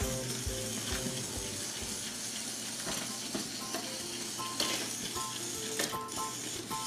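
Background music of short, repeated pitched notes over a steady, even hiss.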